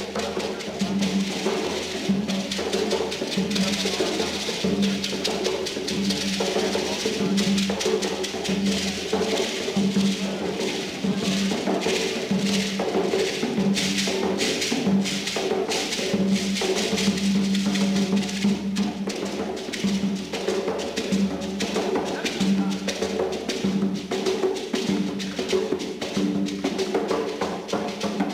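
Music driven by percussion: drums with a steady beat of sharp, clicking strikes over a sustained low pitched tone.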